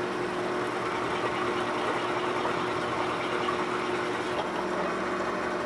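A drill press running with a steady hum while a freshly sharpened single-flute 3/4-inch countersink cuts dry into aluminium, with no chatter.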